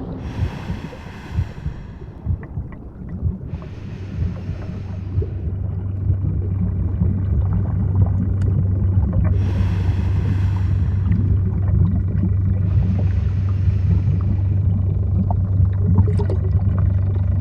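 Underwater ambience: a steady deep rumble, with a scuba diver's regulator breathing over it, each breath a hiss lasting a second or two. Two full breath cycles are heard, one every eight or nine seconds.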